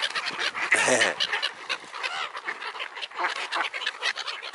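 A flock of black-headed gulls and ducks calling over thrown bread: many overlapping, high-pitched cries, with one louder, lower call about a second in.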